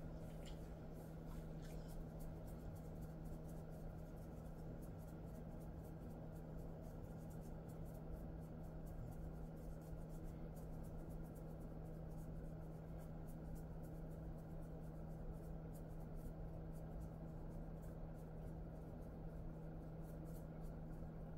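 Fingers massaging and scratching through a Jindo dog's fur, a faint, continuous scratchy rustle over a steady low hum.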